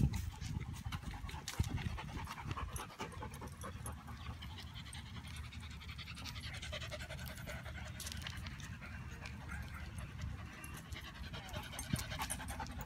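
A small beagle-mix dog panting hard close to the microphone, tongue out, worn out from running in the heat.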